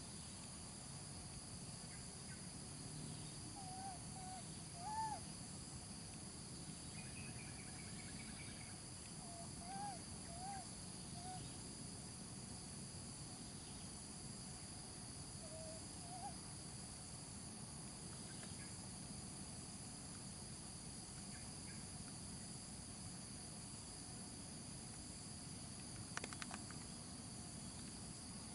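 Steady chorus of insects trilling at several high pitches. A few short rising-and-falling calls stand out about 4, 10 and 16 seconds in, and a brief cluster of clicks comes near the end.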